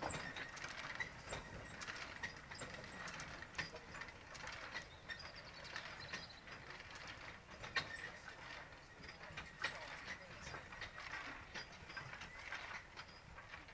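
Irregular light clanks, clicks and rattles from the Steam Elephant replica steam locomotive and its coal wagon as the train creeps slowly along the track on its geared drive.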